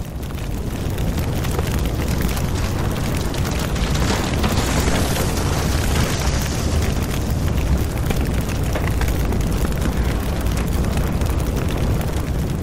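Roar of a large wildfire: a steady low rumble with dense crackling, swelling up over the first second and then holding.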